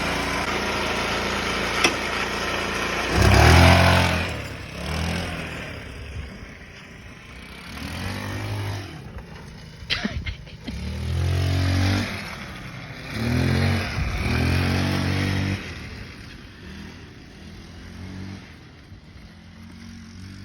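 Single-cylinder four-stroke GY6 scooter engine of a 2007 VIP scooter running, then revved in about five or six short throttle bursts that rise and fall, before settling back to a lower, fainter running note near the end.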